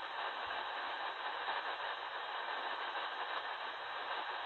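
Steady shortwave static hiss from an ATS-20 receiver's speaker, tuned in upper sideband, with no voice coming through. The hiss is cut off sharply at the top by the receiver's 4 kHz bandwidth filter.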